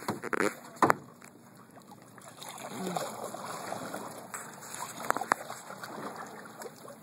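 A paddle splashing and sloshing through choppy water as a small boat is paddled off, with a few sharp knocks of wood on the boat, the loudest about a second in and two more about five seconds in.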